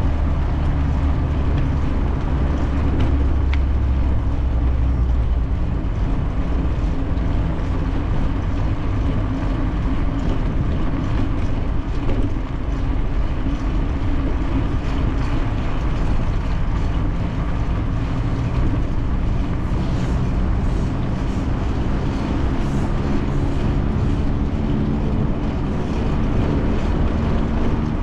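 Steady low wind rumble on a bicycle-mounted action camera while riding, mixed with tyre and road noise.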